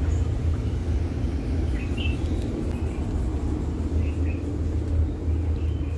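Steady low background rumble, with a few faint, short high chirps from birds now and then.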